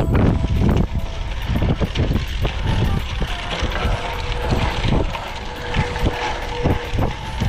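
Wind buffeting the camera microphone as a road bike rolls over a rough gravel track: a steady rumble of tyres and wind, broken by many sharp rattles and knocks from the bike on the loose, bumpy surface.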